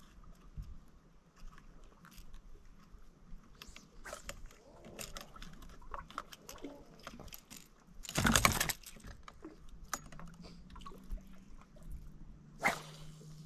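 Scattered small clicks and knocks of fishing tackle being handled while a hooked fish is unhooked over the side of a boat, with one short, loud rushing noise about eight seconds in.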